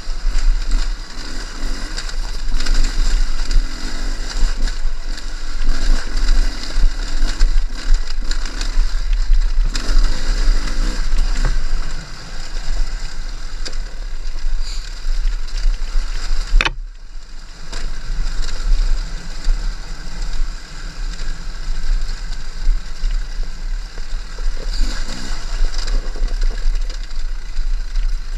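Enduro motorcycle engine running while the bike is ridden, its loudness rising and falling, over a heavy low rumble. The sound drops out abruptly for a moment about 17 seconds in.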